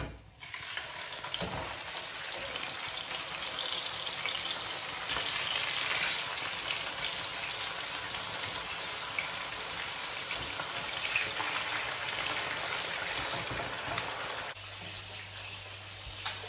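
Meat frying in hot oil in a frying pan, sizzling steadily with the oil spitting. The sizzle drops off sharply about two seconds before the end, leaving a low steady hum.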